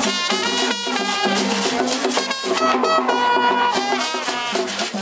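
Haitian rara music: drums and shaken and struck percussion under sustained melodic lines, played continuously.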